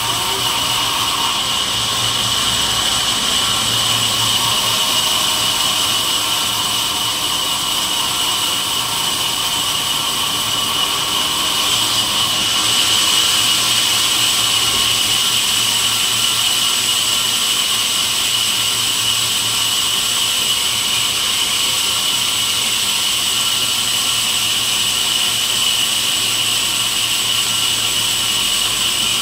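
Sawmill band saw running with a steady high-pitched whine while a squared timber is fed through it. It grows a little louder about twelve seconds in.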